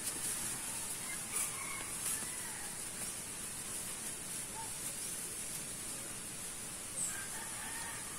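A rooster crowing faintly, twice: about a second in and again near the end. Light crinkling of plastic bags adds a few short clicks, over a steady high hiss.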